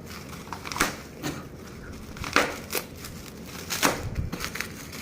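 Packaging being handled and crinkled during an unboxing: several short crackles and rustles, a second or so apart.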